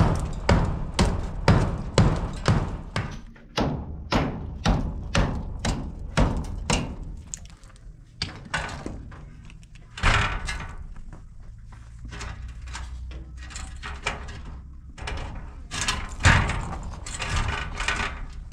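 Hammer and cold chisel chipping into a cinder-block wall, about two blows a second, for the first seven seconds or so. About ten seconds in comes a single loud knock, followed by irregular knocks and scraping as the steel door frame is handled against the wall.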